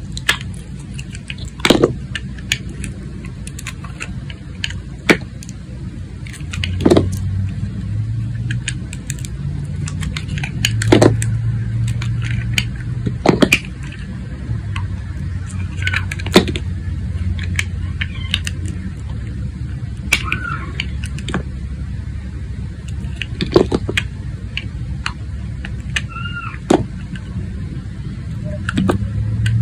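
Clear glycerin soap being sliced with a thin utility-knife blade: crisp clicks and snaps as the blade cuts through and thin pieces break off, about every couple of seconds, over a low steady rumble.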